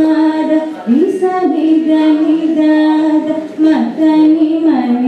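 A woman singing solo into a microphone, holding long notes with a short break and a rising slide into a new note about a second in.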